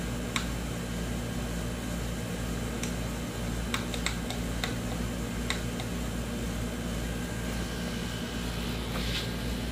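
Steady low mechanical hum in the room, with a handful of sharp, light clicks spread over the first six seconds as the button on the LED desk lamp's head is pressed to switch the lamp off.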